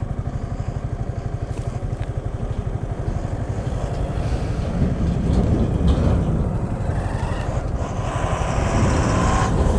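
Yamaha R15 V3's 155 cc single-cylinder engine running at low revs on a rough dirt road, a rapid, steady exhaust beat. An oncoming lorry's engine adds to it, louder in the second half.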